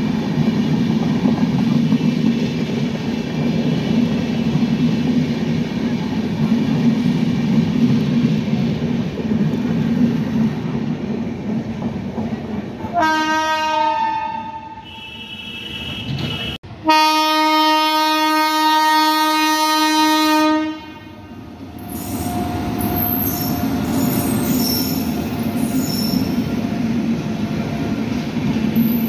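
Passenger train coaches running past at speed, a steady rumble of wheels on rail. About halfway through, a locomotive horn sounds: a short blast, then a long blast of about four seconds. The rumble of passing coaches then returns with faint high wheel squeals.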